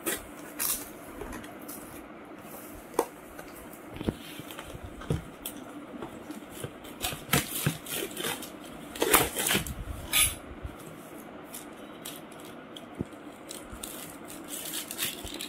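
Sticky tape being peeled off a paperboard food box, with the paper lid and receipt rustling and crinkling as the box is opened. The handling is louder and busier about seven to ten seconds in.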